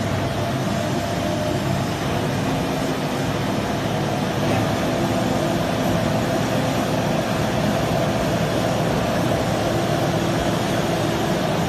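Wheel loader's engine running steadily, an even drone with a faint held whine.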